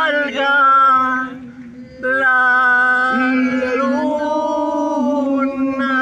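Voices singing a Spanish love song, drawing out long held notes: one held to about a second and a half in, a short drop, then another long note held to the end.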